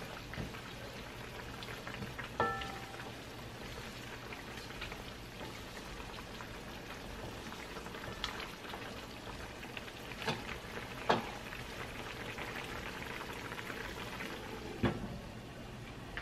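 Chicken and potatoes simmering in sauce in a wok, a steady bubbling crackle, broken by a few sharp knocks of the spatula and lid against the pan, one of them a ringing clink about two and a half seconds in.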